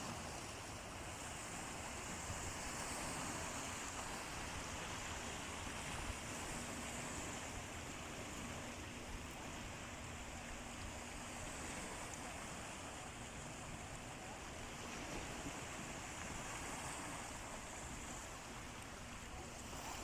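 Sea waves breaking and washing ashore, the surf swelling and easing every few seconds.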